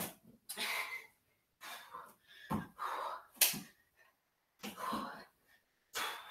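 A woman doing burpees: hard, gasping breaths in short bursts, with one sharp slap about three and a half seconds in as her hands or body meet the mat.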